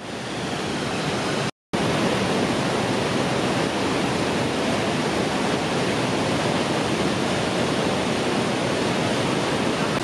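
Iguazu Falls close up: a steady, dense rush of heavy falling water and spray. It is broken once by a split-second gap of silence about a second and a half in.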